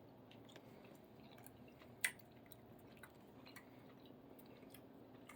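Faint sounds of someone eating at close range: quiet chewing and small scattered clicks, with one sharper click about two seconds in, over a low room hum.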